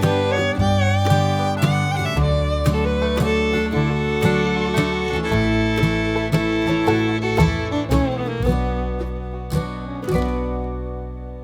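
Background music with plucked guitar and fiddle over a bass line, fading out near the end.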